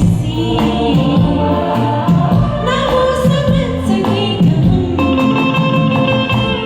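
A woman singing a Hindi film song to a karaoke backing track, her voice wavering on held notes, with steadier instrumental tones taking over for the last second or two.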